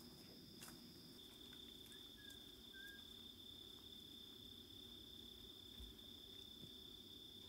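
Faint, steady high-pitched drone of insects in the bush.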